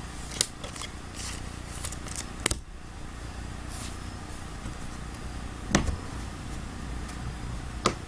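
Trading cards and their packaging being handled and shuffled, with light rustling and four sharp clicks or taps spread through, over a low steady hum.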